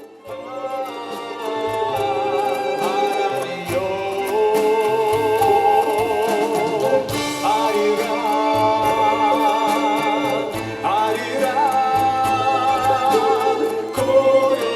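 A song: a woman's high singing voice with a wide vibrato over instrumental accompaniment with a repeating bass line.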